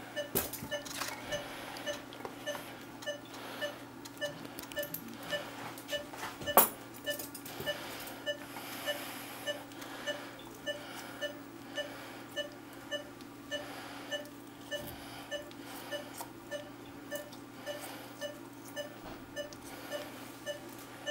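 Operating-room patient monitor beeping steadily, about two short beeps a second, in time with the anaesthetised dog's heartbeat, over a low equipment hum. A single sharp click, likely a surgical instrument, stands out about six and a half seconds in.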